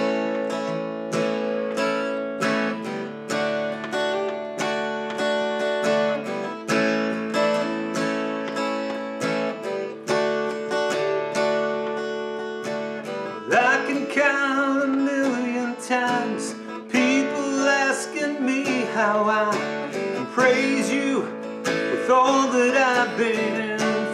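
Acoustic guitar strumming chords in a steady rhythm. About halfway through, a man's singing voice comes in over the guitar.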